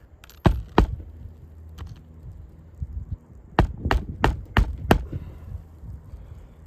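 Claw hammer driving roofing nails into asphalt shingles: two quick strikes near the start, then a run of five strikes about three a second past the halfway point, over a low steady hum.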